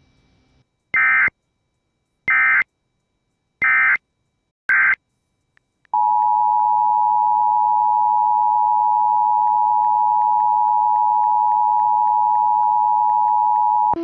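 Four short bursts of Emergency Alert System (SAME) digital data tones, then the two-tone EAS attention signal sounding steadily for about eight seconds.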